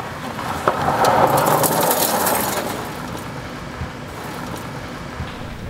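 Minivan pulling away across a gravel lot, its tyres crunching on the gravel over the engine. The noise swells about a second in and fades out after about three seconds.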